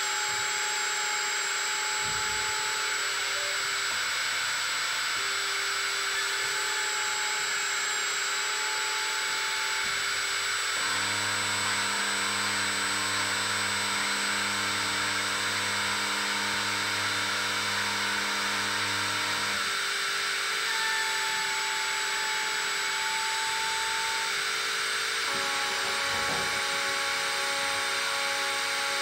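Home-built CNC drilling machine running while it drills holes in a printed circuit board: a steady whir from the drill spindle, with humming tones that shift a few times as the machine's motors move.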